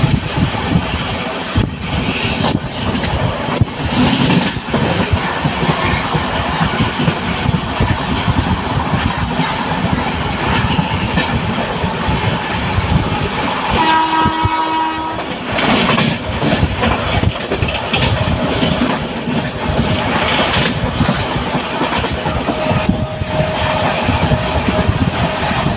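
A passenger train running at speed, heard from inside the coach by an open window: wheels clattering over the rails with rushing air. About halfway through, a train horn sounds once for about a second and a half.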